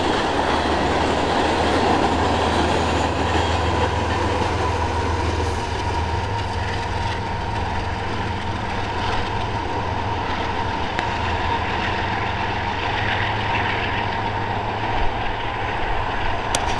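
Union Pacific freight train rolling past, with a steady rumble and clatter of freight-car wheels on the rails. Under it is a low diesel-locomotive drone, strongest in the first half.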